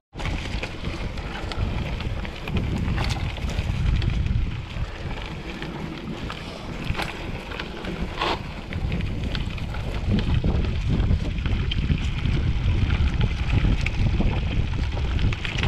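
Mountain bike riding down a dirt forest trail: wind buffeting the handlebar camera's microphone as a constant low rumble, with tyre noise and scattered clicks and knocks from the bike jolting over the rough ground.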